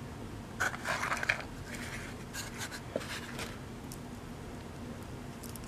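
Handling noise of an old Flatfish fishing lure being lifted out of its small cardboard box: light rustling and scraping of cardboard in short spells about a second in and again around two and a half to three and a half seconds in, with one small click about three seconds in.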